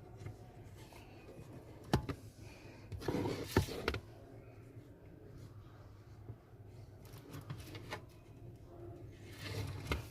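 Quiet handling noises as glue is run around the frame of a phone: a sharp click about two seconds in, a short rustle ending in a click around three and a half seconds, and another rustle near the end, over a low steady hum.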